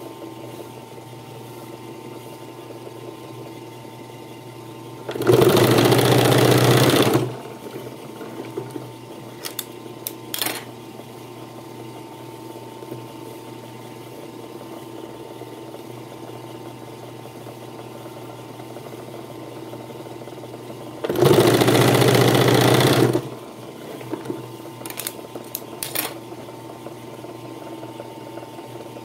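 Puritan three-needle industrial sewing machine stitching leather in two runs of about two seconds each, with a steady hum between the runs. A few short clicks follow each run.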